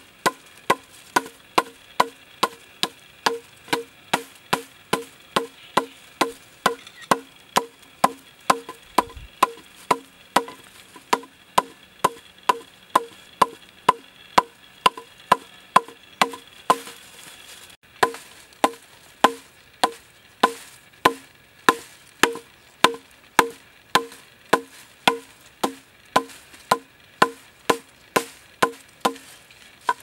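A small hammer striking a length of bamboo in a steady run of ringing, hollow-pitched knocks, about two a second. They pause briefly about two-thirds of the way through, then resume.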